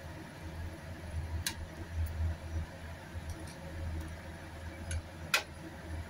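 A ladle stirring soup in a stainless steel pot, clinking lightly against the pot a few times, with the loudest clink near the end, over a low steady rumble.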